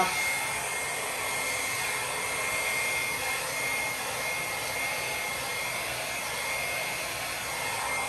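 Hand-held hair dryer running steadily, blowing across wet acrylic paint on a canvas, with a steady high whine over its rushing air.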